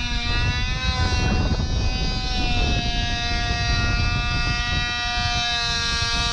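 Gusty wind buffeting the microphone in a continuous low rumble. Over it runs a steady, droning multi-toned hum that wavers slightly in pitch.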